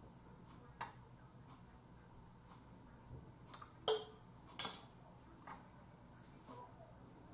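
Quiet room with faint ticking about once a second and a few sharp clicks and knocks; the two loudest come about four and four and a half seconds in.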